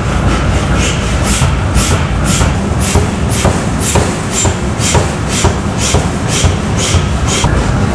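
A 500 kg power hammer striking a red-hot round steel workpiece held in tongs on the die: a steady run of sharp blows about two a second over the machine's low running rumble.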